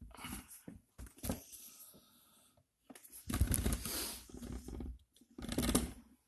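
Handling noise: the phone's microphone rubbing and bumping against a knit sweater as the camera is moved around, in irregular scraping, rustling bursts with low thuds, the loudest about three seconds in and again near the end.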